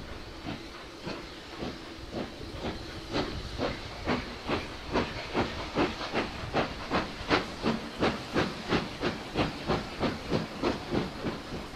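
Steam locomotive exhaust chuffing in regular beats as the engine gathers speed. The beats quicken from about two to about three a second and grow louder, then ease off just before the end.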